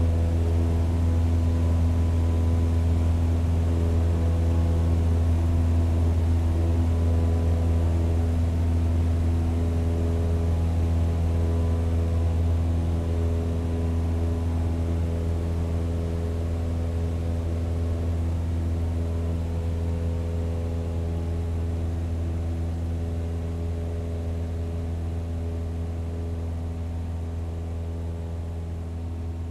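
Twin-turboprop ATR airliner's engines and six-bladed propellers droning at high power as it rolls down the runway away from the listener, a steady deep hum with a buzzing overtone. It fades slowly over the second half as the aircraft draws away.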